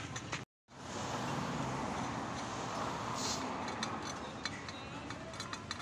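Steady outdoor background noise with no clear single source. The sound drops out completely for a moment about half a second in, and a few light clicks come through in the second half.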